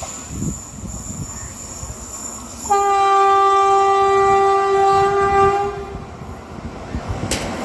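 Train horn sounding one long, steady blast lasting about three seconds, starting a little under three seconds in, over the rumble of an approaching train that grows louder near the end.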